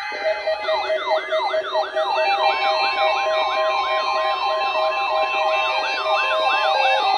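Electronic yelp-type siren alert: rapid rising-and-falling sweeps, about three a second, layered over steady tones. It gets louder about two seconds in.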